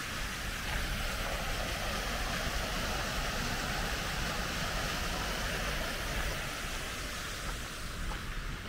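Baroque cascade fountain's spouts of water falling into its stone basin: a steady rushing splash, a little louder in the middle.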